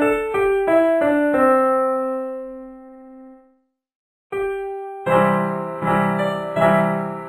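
Background music on an electric piano: a melody ends on a held note that fades out, a moment of silence follows, then a new tune starts with a single note and a steady, evenly repeating chord beat.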